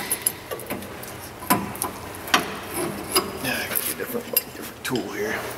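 Metal clinks, clicks and scraping of a hand tool working on a steel tie rod adjuster sleeve, irregular, with a few sharp clicks.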